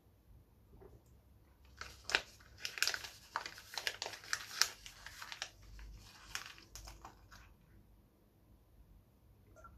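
A sheet of printed paper crinkling and tearing as it is bitten and chewed: a dense run of crackles starting about two seconds in and lasting about five seconds.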